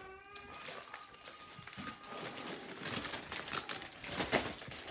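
Paper and gift wrap rustling and crinkling in irregular bursts as presents are handled and packed into a sack, loudest about four seconds in.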